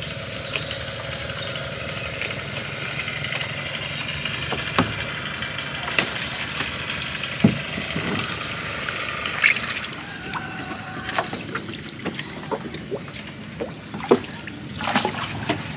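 Scattered knocks, clicks and light splashes as a bamboo fish trap is handled in the water, over a steady background noise.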